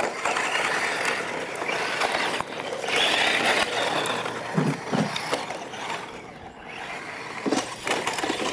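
Small radio-controlled trucks racing over a dirt track: tyres running on loose gravel and motors going, swelling and fading twice as they pass, with a few short knocks from landings off the jumps about halfway through and near the end.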